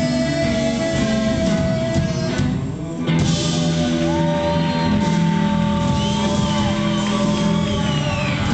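Live rock band playing, with electric guitars over bass and percussion and long held melody notes. The band thins out briefly about two and a half seconds in, then comes back in full about three seconds in.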